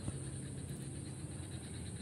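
Faint steady background: a low hum under a steady high-pitched drone, with one small click just after the start.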